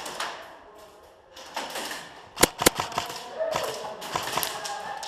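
Two sharp cracks of airsoft gunfire about a quarter of a second apart, about halfway through, among scattered lighter clicks and taps.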